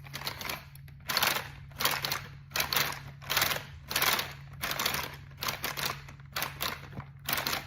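A small model push-rod inline-four engine running slowly: a steady low hum under a rhythmic clatter that repeats about every 0.7 seconds.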